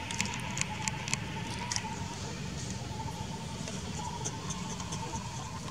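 Outdoor ambience: a steady low rumble with a thin steady tone above it, and a few light crackles and clicks in the first two seconds.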